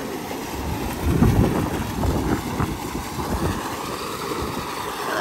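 Wind buffeting the microphone in uneven gusts, strongest about a second in.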